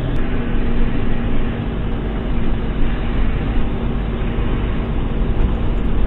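Diesel engine of a grain semi truck running steadily, a constant hum over low rumble.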